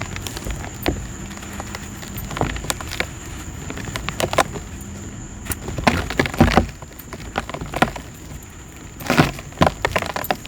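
Clumps of dry black dirt crumbling, a run of irregular crisp, gritty crackles, with denser, louder clusters about six seconds and nine seconds in.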